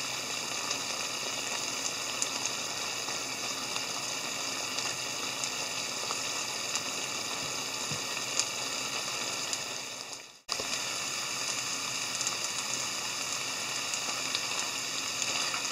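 Simmered hijiki with vegetables, soybeans and fried tofu bubbling and sizzling steadily in a frying pan as the last of its soy-dashi liquid cooks down. The sound cuts out briefly about ten seconds in, then returns.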